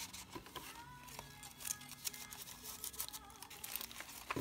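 Soft music playing from a vinyl record, with light ticks and rustles of paper and card being handled.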